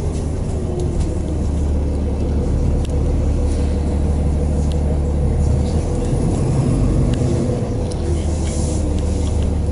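Inside a New Flyer XDE40 diesel-electric hybrid bus under way: a steady low drone from the Cummins ISL9 diesel and drive, with a steady whine above it and a few light rattles.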